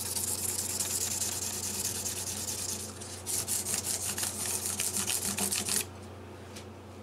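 Guitar frets being hand-sanded with 1200-grit abrasive through a steel fret guard: a quick back-and-forth rubbing hiss, with a brief pause about three seconds in, stopping suddenly near the end.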